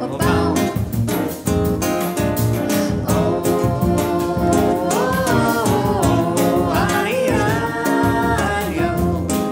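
Small acoustic ensemble playing a Brazilian song: a woman singing long, wavering notes over acoustic guitar, piano, double bass and hand-played percussion on a small drum kit.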